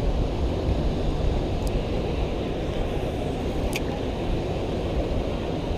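Wind buffeting the microphone, a steady low rumble, with two faint ticks in the first four seconds.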